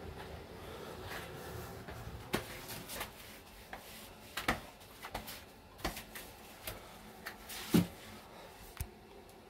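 Swiffer sweeper being pushed around a laminate floor: a scattering of light knocks and clacks at irregular intervals, the loudest one near the end.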